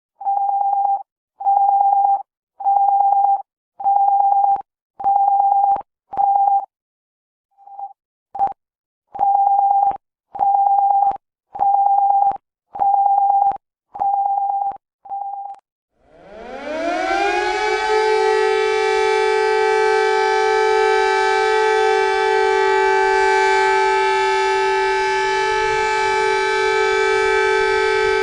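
Emergency alert beeps: one steady tone repeating about once a second, with a short break partway through. About sixteen seconds in, a civil defense siren rises in pitch and holds a steady chord of several tones.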